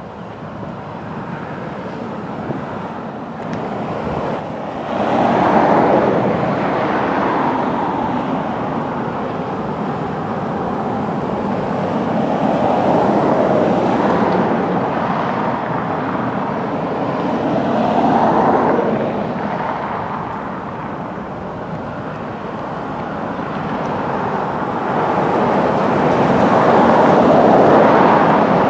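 Union Pacific freight train's diesel locomotives running as the train moves slowly through a rail yard. The engine sound swells and eases several times.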